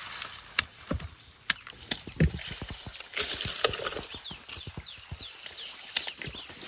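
Irregular knocks and clicks throughout, with a run of short, high, falling peeps from chicks in the middle.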